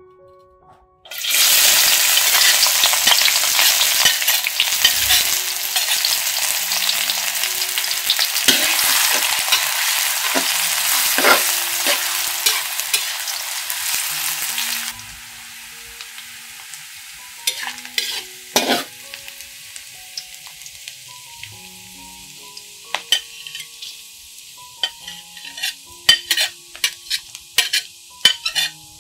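Diced onion hitting hot oil in a steel wok and sizzling loudly at once. About halfway through the sizzle drops suddenly to a softer frying hiss, with a metal spatula clicking and scraping against the pan as the onion is stirred.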